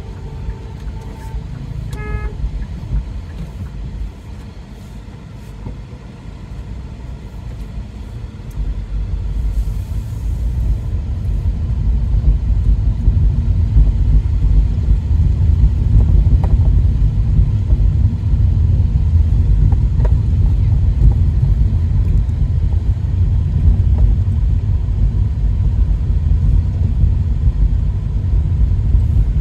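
Road noise heard inside a moving taxi: a low rumble that grows louder from about eight seconds in. Near the start a vehicle horn toots twice, a longer note and then a short one.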